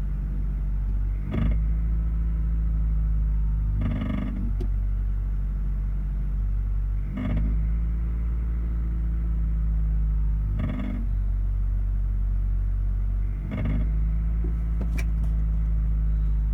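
Honda Accord engine running, with a short surge of louder noise about every three seconds. Its metal clanking and rattling comes in only at certain revs, cause not yet known.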